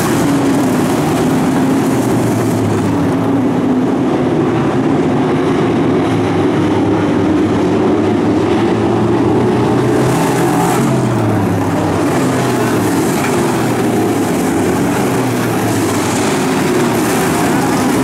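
A pack of pro stock dirt-track race cars' V8 engines running together around the oval, the engine pitch falling and rising as cars pass and change speed.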